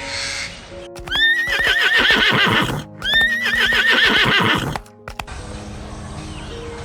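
A horse whinnying twice, each call rising sharply and then wavering, over soft background music.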